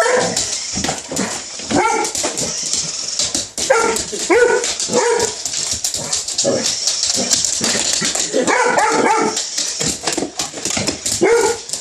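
A dog barking repeatedly in short volleys, about every second or two with a longer run near the end, over a steady high hiss with scattered clicks.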